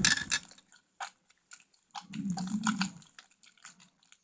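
Sticky slime being squished and kneaded by hand with lotion, giving a string of wet clicks and squelches, with a denser squishing patch about two seconds in.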